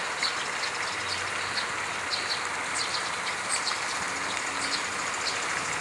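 River water running steadily, an even rushing hiss, with faint short high chirps scattered through it.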